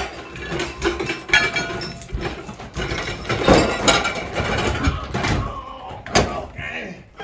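Dishes and other objects clattering and knocking as they are handled and loaded, in a run of irregular knocks and clinks with one sharp knock about six seconds in.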